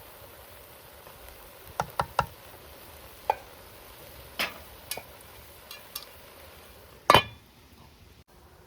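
Kitchen utensils clinking and knocking against cookware several times, with one louder knock near the end, over a faint steady hiss.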